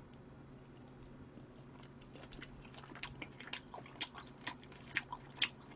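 Faint, close-miked chewing: irregular wet mouth clicks and smacks starting about two seconds in, as a mouthful of food is eaten.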